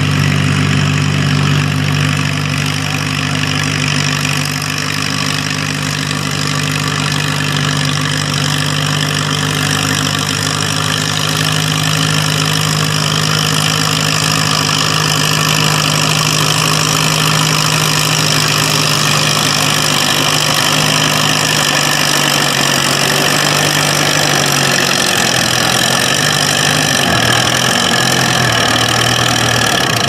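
Farmall M pulling tractor's engine running hard under load, dragging a weight sled. The pitch holds steady for most of the run, then dips and wavers during the last several seconds.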